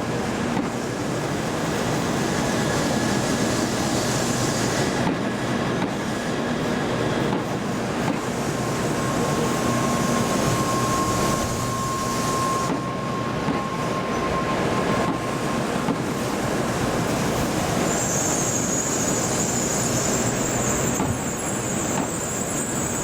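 N700A Shinkansen train rolling past over rails: steady wheel-and-rail running noise with thin wheel squeal tones, one held for several seconds in the middle. A high-pitched whine joins near the end.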